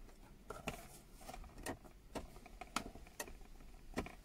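Faint, irregular small clicks and taps of a glass perfume bottle and its cardboard box being handled.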